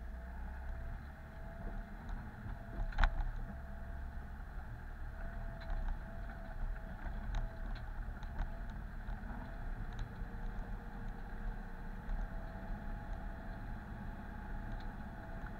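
Off-road 4x4 running in low gear while it crawls down a rocky dirt track, heard from inside the cabin: a steady low rumble with a thin wavering whine. Scattered knocks and rattles from the wheels and body over stones come through, the loudest about three seconds in.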